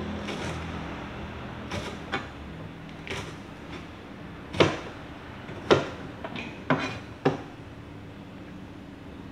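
Kitchen knife chopping chillies on a plastic cutting board: about ten sharp, irregularly spaced knocks, the loudest in the middle.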